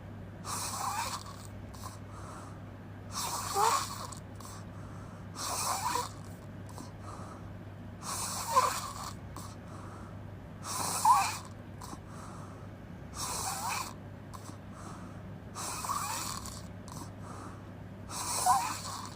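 A person snoring with the mouth open: a rasping snore about every two and a half seconds, some noticeably louder than others.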